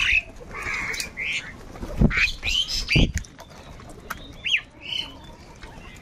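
A flock of house crows calling, with overlapping harsh caws and shorter cries coming one after another. Two low thumps stand out about two and three seconds in.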